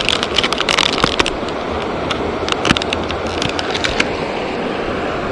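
Close handling noise: a quick run of sharp clicks and crackles for about the first second, with a few single ticks later, over a steady rushing noise of moving water or wind.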